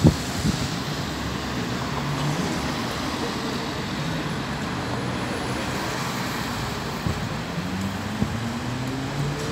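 Road traffic: an articulated city bus pulling away and cars driving past, engines and tyre noise on the road. A short sharp thump right at the start, and an engine tone rising near the end as a vehicle accelerates.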